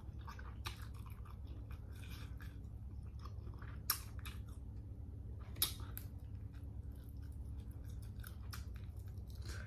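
Close-miked chewing and wet mouth sounds of someone eating shrimp: scattered soft clicks and smacks, with two sharper clicks about four and five and a half seconds in, over a steady low hum.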